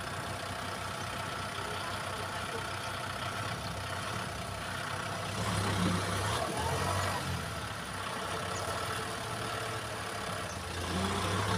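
Tractor diesel engine running steadily, growing louder for about a second and a half halfway through and again near the end.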